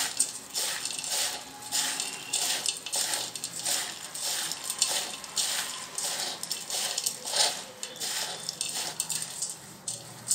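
Dry, crunchy chanachur mix of fried gram-flour noodles, fried dal and peanuts being tossed by hand in a stainless steel bowl. It makes a rapid, irregular rustling, with the hard pieces rattling against the steel.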